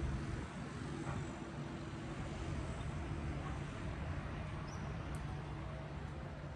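Steady outdoor city ambience: distant traffic noise with a low, even hum underneath.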